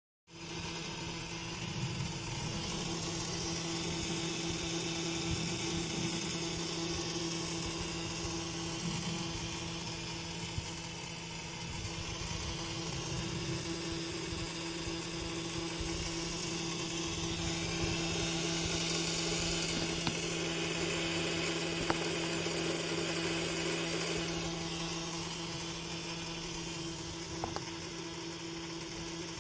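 Generac generator making a steady buzzing hum with a rattly, ratchet-like chatter over it, a sound the owner takes for a solenoid misbehaving.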